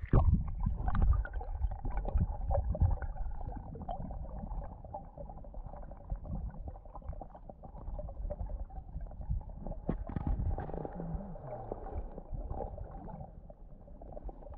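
Muffled underwater sound recorded with the camera below the river surface: low rumbling and many small knocks of water moving against the camera housing, loudest in the first few seconds, with a faint steady tone underneath.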